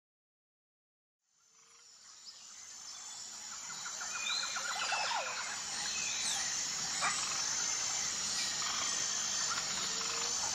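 Near silence, then a nature ambience fades in over about three seconds: birds chirping, with a short trill, over a steady high hiss.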